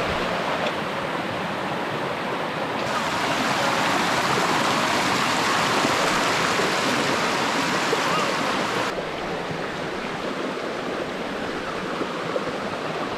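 Hill stream water rushing steadily over rocks, a continuous even splashing. The sound abruptly becomes brighter and hissier about three seconds in and drops back near nine seconds.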